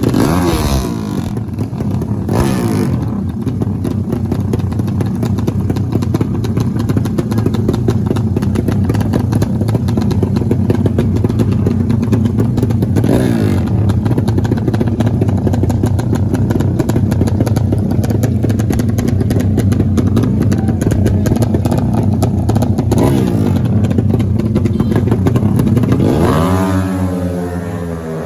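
Racing motorcycle engines running hard at high revs, rising and falling in pitch several times, with one dropping away in pitch near the end.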